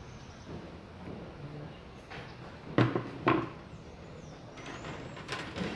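Handling noises while wiring a jade bonsai (Portulacaria afra) with copper wire: two sharp knocks about half a second apart, then a few lighter clicks near the end.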